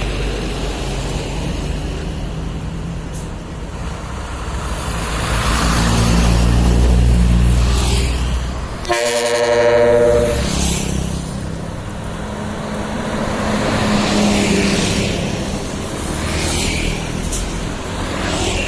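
Dump truck's diesel engine rumbling louder as it comes past, then about halfway through a short blast of its ship-style trumpet air horn, one steady chord lasting a second or two.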